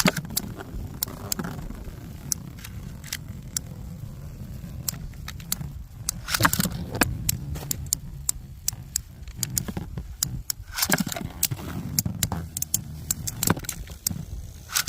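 Metal Fight Beyblade spinning tops clashing and grinding in a stadium: many sharp, irregular metallic clicks and scrapes, thickest about six and eleven seconds in. A steady low wind rumble on the microphone runs underneath.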